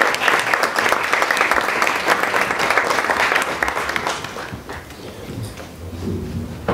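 Audience clapping, dying away about four seconds in, followed by a few soft knocks as a table microphone is handled.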